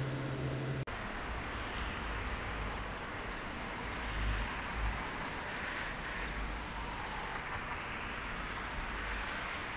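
A low steady hum for about the first second, then a sudden cut to outdoor wind: a steady rush with uneven low gusts buffeting the microphone.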